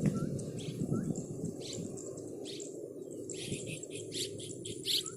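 Keket babi bird calling in a series of short, sharp chirps, roughly one a second, over a steady low background rumble.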